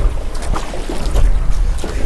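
Canoe paddles dipping and pulling through pond water in a few quick, splashy strokes during a sprint, with wind buffeting the microphone.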